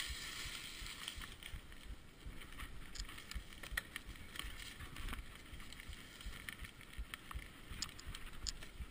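Mountain bike riding downhill on a dirt forest singletrack: tyres rolling over the trail with a steady hiss, the bike rattling with many short sharp clicks over bumps, and wind buffeting the microphone in low, irregular rumbles.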